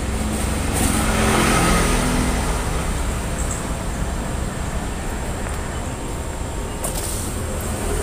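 Road traffic going by: a steady low rumble with one vehicle passing louder about a second in.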